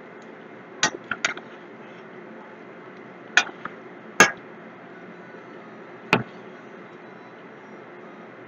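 A steel slotted ladle knocking and clinking against a steel kadai a handful of times, sharpest about four and six seconds in, as bondas are turned over in hot oil. Under it the oil frying gives a steady soft hiss.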